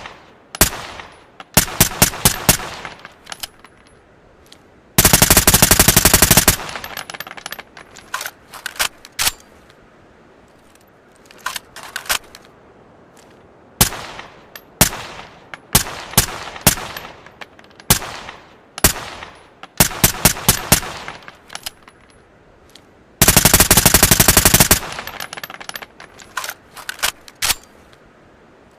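Suppressed ARN-180 assault rifle firing single shots and short bursts, with two long fully automatic bursts of about a second and a half each: one about five seconds in and one later on.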